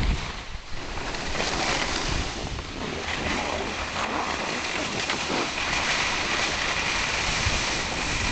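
Skis hissing and scraping over snow during a downhill run, with wind rushing over the microphone.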